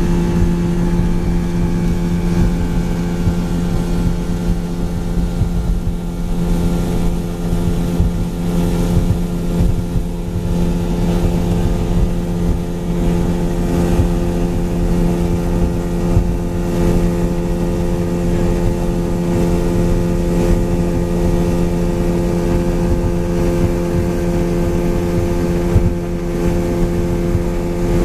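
Boat's engine running steadily under way, a constant even hum, with wind buffeting the microphone.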